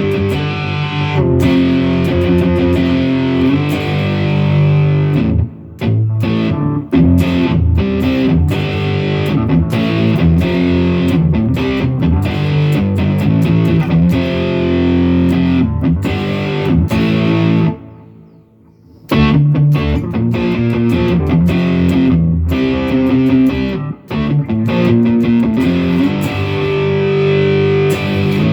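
Electric guitar played with a crunch (light overdrive) tone through a full-range flat-response (FRFR) amplifier. The playing breaks off briefly about six seconds in and again for about a second roughly two thirds of the way through.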